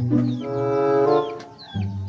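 Background music: held pitched notes that change every half second or so, with short falling whistle-like glides above them.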